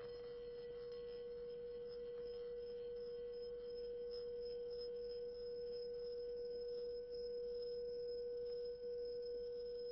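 A single sustained pitched tone near 500 Hz, steady and without decay, with faint higher overtones, as part of a performance for percussion and electronics.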